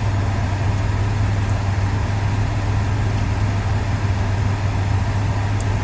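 Steady low hum of an idling motor vehicle engine, unchanging throughout.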